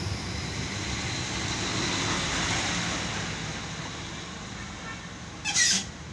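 Low-floor electric tram at the platform: a steady hum and rumble that swells and then eases. A short sharp hiss comes about five and a half seconds in.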